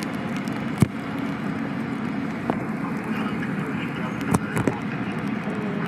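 A steady engine hum, like a large vehicle idling, with faint voices under it and a few sharp knocks: one about a second in and three close together past the middle.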